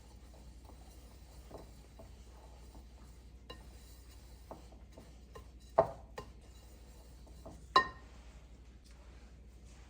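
Kitchen dishware being handled: light taps and clicks over a faint low hum, with two sharper clinks about six and eight seconds in, the second ringing briefly.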